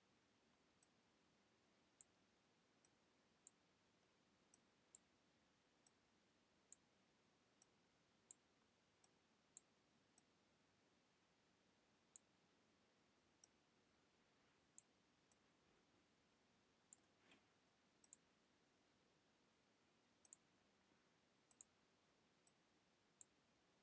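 Faint, sharp computer mouse clicks at irregular intervals, roughly one a second, with a few quick double-clicks, over near silence.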